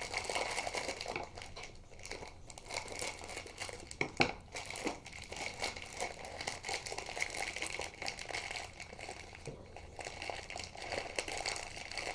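Packaging of a small toy building-block set crinkling and rustling as it is opened and the pieces are handled, with many small clicks throughout and a sharper tap about four seconds in.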